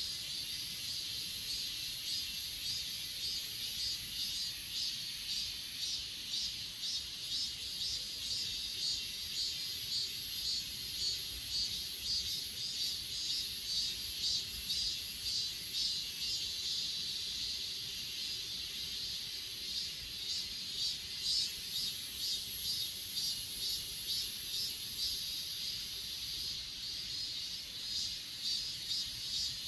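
Chorus of grass insects such as crickets calling: a steady high-pitched shrill trill under a pulsed chirping that repeats several times a second. The chirping fades about halfway through and picks up again near the end.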